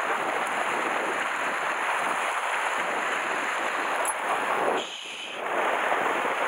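Steady rush of wind on the microphone mixed with surf washing against shore rocks, with a brief lull about five seconds in.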